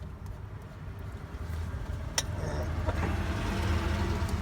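A vehicle's low rumble swelling gradually, loudest near the end, with a single sharp click about two seconds in.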